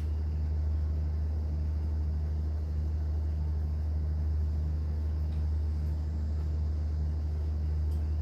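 Cruise boat's engine droning steadily: a deep, even hum with a faint regular throb riding on it.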